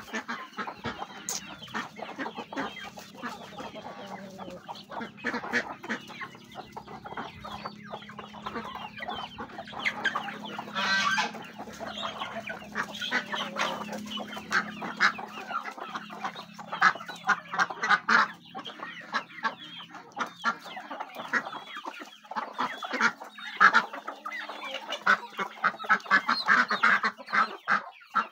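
A flock of domestic chickens clucking and calling continually while pecking at food, with one longer, louder call about eleven seconds in.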